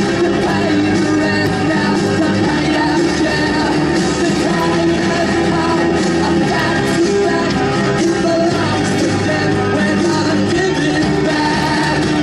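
A rock song playing: a singing voice over a full band, steady in loudness throughout.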